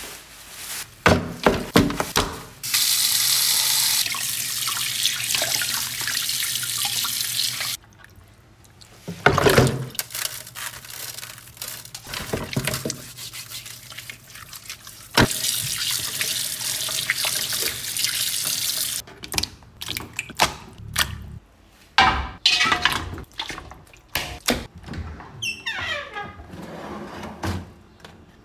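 Kitchen tap running into a sink while pork belly is washed by hand in a plastic basin. The water runs twice, several seconds each time, with knocks, splashes and clatter of handling between and after.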